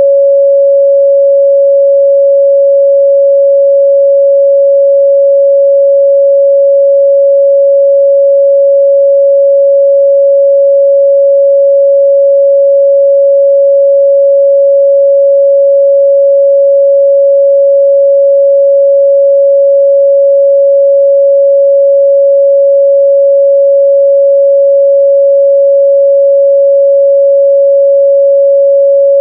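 Continuous 557 Hz sine-wave test tone, one pure steady pitch at constant loudness.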